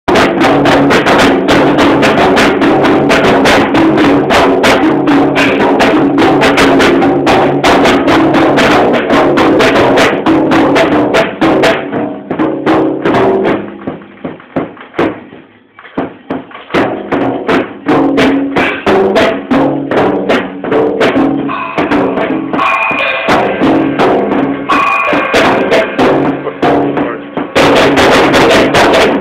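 Drum kit played with fast, steady hits along with music that has sustained pitched parts. About halfway through, the drumming thins to a brief near-pause. For a long stretch in the middle the sound is duller, with the treble cut off, before it turns bright again near the end.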